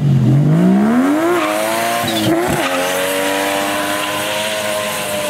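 Toyota Chaser JZX100 drift car's 1JZ straight-six revving hard as the car launches, with a sharp dip and recovery about two seconds in. It is then held at high revs while the rear tyres spin and squeal through a smoking drift.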